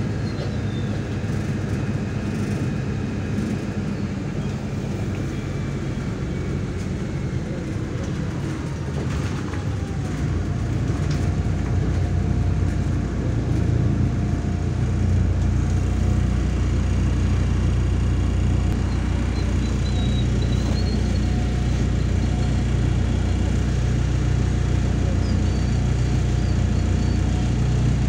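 Engine and road noise heard inside a MAZ 103 city bus as it drives; the low engine drone swells and grows louder about halfway through.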